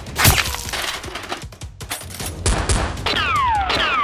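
Edited-in gunshot sound effects for a toy blaster over background music: one loud shot about a quarter second in, then from about halfway a rapid run of automatic-fire shots, several a second, with two falling whistle-like zaps near the end.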